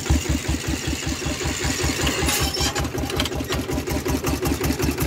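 Kubota single-cylinder diesel engine on a walking tractor running steadily through a loud aftermarket exhaust pipe, an even rapid chugging beat. A brief hiss comes about two and a half seconds in.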